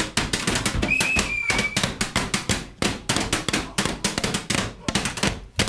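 Fast run of sharp knocks and clicks played as percussion on empty glass bottles, with a brief high note about a second in.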